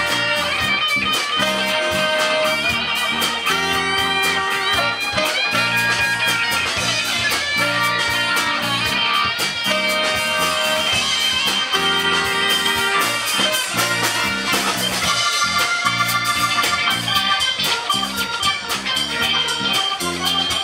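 Live blues-rock band playing an instrumental section with no vocals: electric guitar, saxophones, keyboard and drums.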